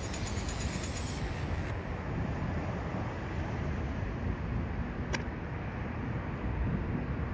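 Low rumble of a twin-engine jet airliner landing and rolling out on the runway, with a high engine whine that stops under two seconds in. A single sharp click comes about five seconds in, and the rumble grows louder near the end.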